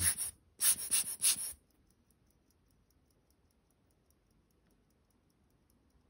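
A few scratchy handling sounds in the first second and a half. Then the faint, quick, even ticking of a running antique Jürgensen-style pocket watch movement, a sign that it is working.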